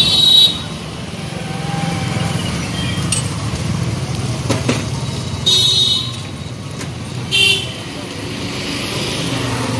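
Street traffic with a steady engine rumble under it. Vehicle horns toot three times, briefly: once at the start, once about five and a half seconds in, and once about seven and a half seconds in.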